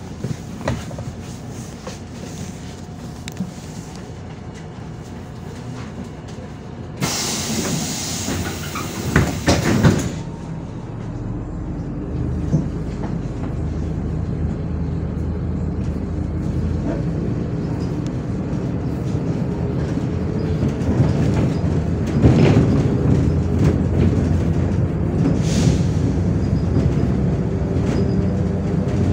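Interior of a MAZ 105.465 city bus: low diesel engine hum with scattered rattles and knocks, then a loud hiss of compressed air from the bus's pneumatic system about seven seconds in, lasting some three seconds. After it the engine gets louder and steadier as the bus pulls away and gathers speed, with the cabin rattling.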